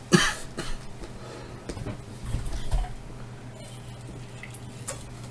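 A brief rustle at the start, then an aluminium soda can being handled and drunk from, with small clicks and a few sips and swallows.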